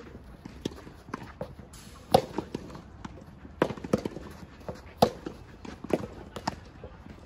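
Soft tennis rally: rubber balls struck by rackets and bouncing on the court, a string of sharp pops, the loudest about two and five seconds in.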